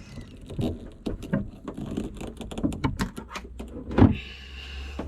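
Irregular clicks and knocks of parts and tools being handled, with a loud thump about four seconds in, after which a steady low hum comes in.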